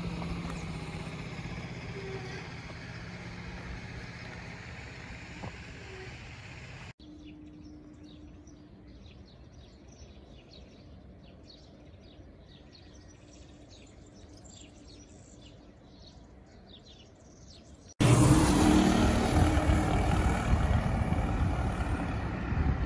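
Outdoor ambience in three abrupt cuts: a steady low hum of distant traffic, then about seven seconds in a quieter stretch of small birds chirping, then near the end loud wind buffeting the microphone.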